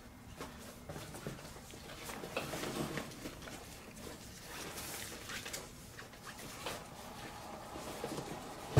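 Gloved hands handling a GoPro Hero 5 action camera: soft rubbing and light taps and clicks on its body and touch screen, with one sharp knock at the very end.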